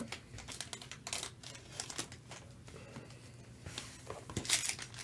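Foil trading-card pack wrappers crinkling and rustling as gloved hands handle them, in scattered short rustles that get louder near the end.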